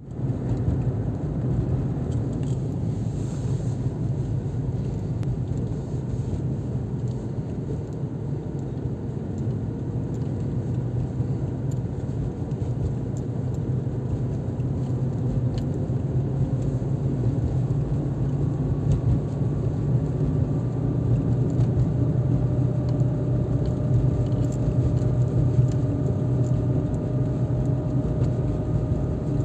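Car driving, heard from inside the cabin: a steady low engine and road rumble, with a faint whine that rises slowly in pitch over the second half and a few light ticks and rattles.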